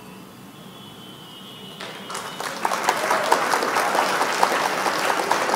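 Applause sound effect: a crowd clapping, starting about two seconds in and then running at an even level, played as the correct answer of the quiz question is revealed.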